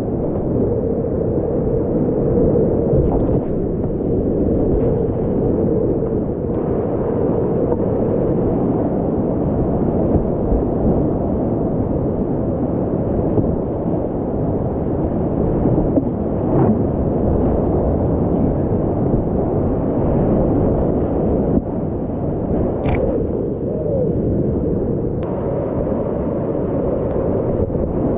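Whitewater rapids rushing around a kayak: a loud, steady rush of water, dull with little treble, broken by a few brief clicks.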